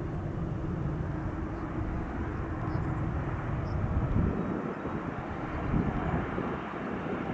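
Mitsubishi CRJ-900LR regional jet arriving, its turbofan engines a steady low rumble that grows a little louder and rougher about halfway through.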